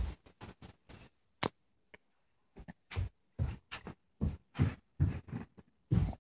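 A child's footsteps on a carpeted floor: a run of short, dull thumps, about two a second, with a few sharper clicks in the first second and a half.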